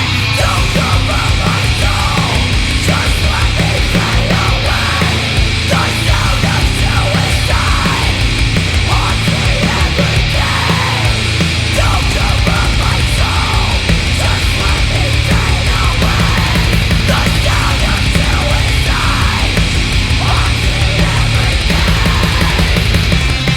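Loud heavy metal song with distorted band instruments and drums, the kick drum hitting in a fast, steady pulse.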